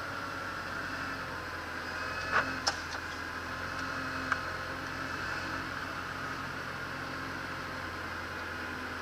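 Kubota L5740 tractor's diesel engine running steadily, heard from a camera mounted on the tractor, with three sharp clicks about two and a half, three and four and a half seconds in.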